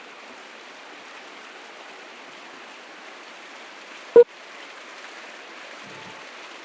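Steady rain-like hiss, with one short sharp pop about four seconds in.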